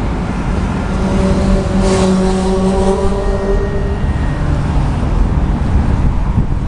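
Steady road traffic noise. A vehicle engine's hum stands out over it from about a second and a half in for two or three seconds.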